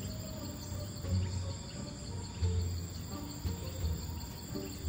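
Insects chirring steadily with a fast high pulsing, over background music with recurring low bass notes.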